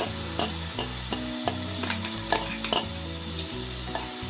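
Spice masala sizzling in a steel kadhai while a spatula scrapes thick onion-tomato paste out of a steel grinder jar into it, with repeated sharp clicks and scrapes of the spatula on metal.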